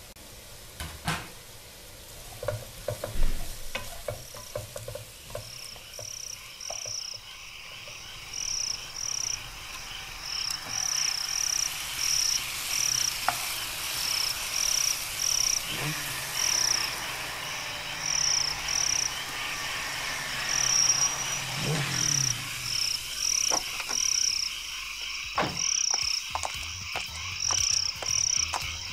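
Vegetables sizzling in a wok while a spatula stirs them, knocking and scraping against the pan, with a few knocks in the first seconds and quick clicks near the end. Over it runs a repeating high chirp, about two a second, from a few seconds in.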